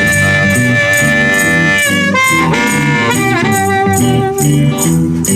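Live blues band playing with a harmonica lead: one long held note, then bending notes about two seconds in, over electric guitars, bass and drums keeping a steady beat.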